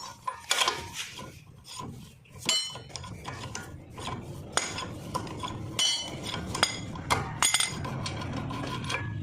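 Metal tools and parts clinking and scraping: irregular sharp metallic knocks, some with a short ringing, as work goes on on the brake assembly.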